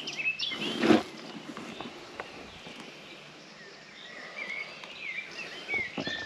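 Small birds chirping intermittently, with a single short scuff, like a footstep on loose rubble, about a second in.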